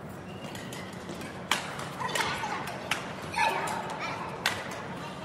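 Badminton rally: several sharp pops of rackets striking a shuttlecock, roughly a second apart, starting about a second and a half in.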